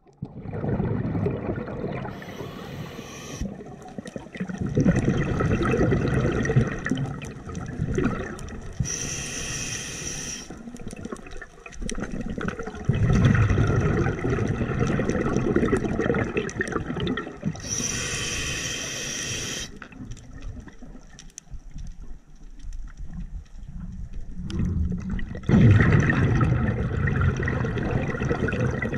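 Scuba diver breathing through a regulator underwater: a short hissing inhale about every seven to eight seconds, each followed by a long rush of exhaled bubbles.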